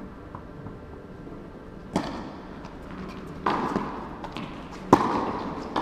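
Tennis ball being played in a rally: three sharp hits of ball on racket strings and court, about a second and a half apart, each ringing on in the hall's echo.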